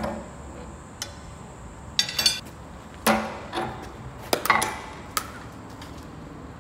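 Metal parts and tools being handled on a stripped-down milling machine's cast-iron bed: a series of separate clanks and clinks, with a short jingling rattle about two seconds in.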